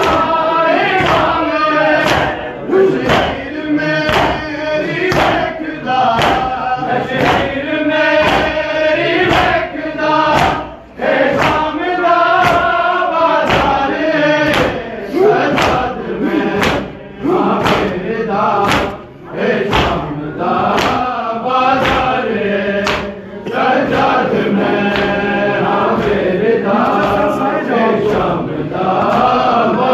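A crowd of men chanting a noha in unison, keeping time with regular sharp slaps of hands on chests in Shia matam. The chant falls away briefly a few times while the beating carries on.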